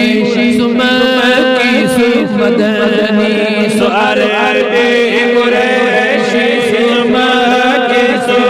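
Kashmiri naat chanted by male voice, a wavering sung melody over a steady held drone.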